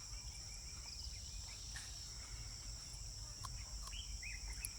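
Steady high-pitched chorus of crickets or similar insects, with a few short bird chirps in the second half over a low outdoor rumble.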